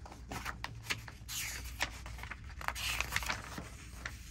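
Pages of a paper instruction booklet being handled and turned: paper crackling in short crisp snaps, with two longer rustling swishes, one just over a second in and one about three seconds in.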